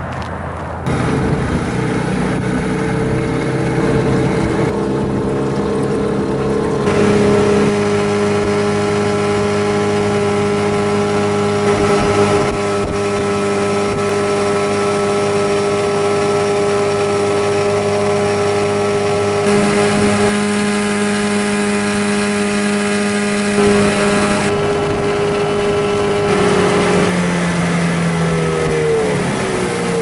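Outboard motor running at a steady speed, driving a small johnboat along; its pitch dips briefly near the end.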